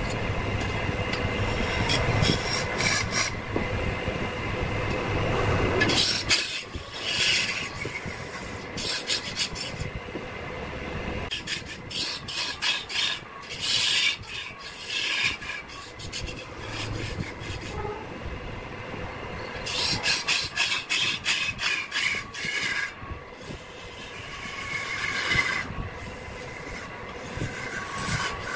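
A hand-held turning tool cuts into a large red hardwood blank spinning on a wood lathe, making a harsh scraping and rasping. The scraping comes in bursts that start and stop as the tool is pressed in and lifted off. A low lathe hum is heard in the first few seconds.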